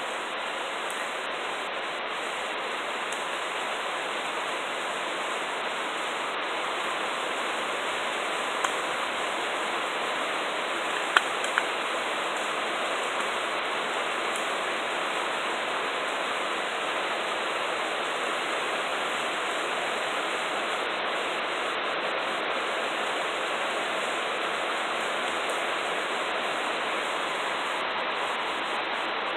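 Steady rain falling, an even hiss throughout, with a few light clicks about 9 and 11 seconds in as a small plastic switch assembly is handled.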